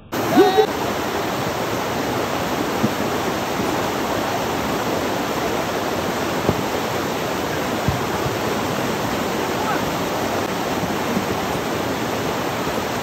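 Steady rushing of a fast, muddy flood river. A brief voice is heard about half a second in, and there are a few faint knocks.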